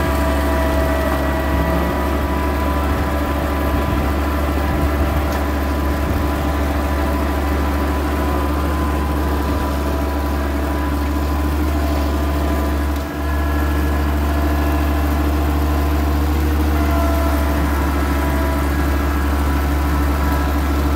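Small front-loader tractor's engine running steadily as the tractor is driven along. The sound dips briefly once, about two-thirds of the way through.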